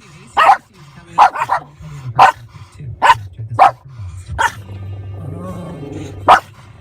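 A pet dog barking close by, about eight sharp barks at uneven intervals, with a low steady hum underneath in the second half.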